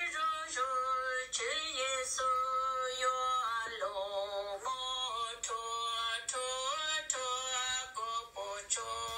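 Music: a melody of long, held high notes that change pitch every second or so.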